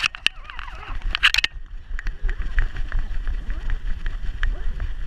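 Handling noise from a GoPro strapped to a dog's back: a low rumble with irregular clicks and knocks as the camera shifts with the dog's movement, and a brief denser clatter about a second in.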